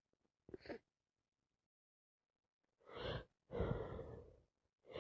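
A woman's two gasping, breathy inhalations about three seconds in: the build-up to a sneeze.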